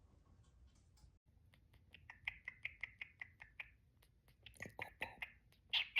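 Cockatiel making a quick, even run of soft clicks, about six or seven a second, with a faint chirping tone. It starts a second or so in and grows louder near the end.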